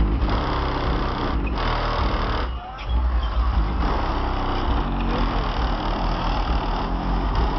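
Pioneer trunk subwoofers in a Buick Regal playing bass-heavy music, heard from outside the car. Deep bass notes dominate, with a brief drop-out about two and a half seconds in.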